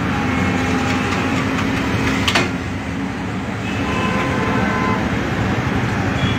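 Heavy diesel engine of the recovery machinery (crane and excavator) running steadily under work, with one sharp metallic clank about two seconds in.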